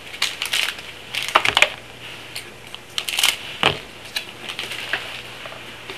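SPx hockey trading cards being handled and flipped through by hand, giving a string of irregular rustling, scraping and crinkling noises.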